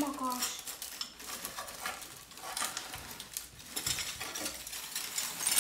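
Ceramic dishes and broken pieces clinking and scraping against one another as they are handled in a packing box: a run of light, irregular clinks with a brief ring right at the start.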